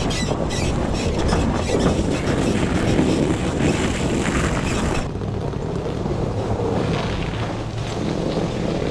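Truck driving slowly over a snowy off-road trail: a low engine hum under a rough haze of tyre and wind noise on the camera microphone, with light crackling in the first half. The sound turns duller about five seconds in.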